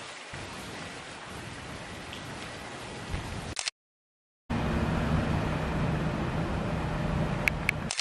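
Steady hiss of background ambience broken by a short gap of dead silence. After the gap comes a louder room noise with a steady low hum, and two short clicks near the end.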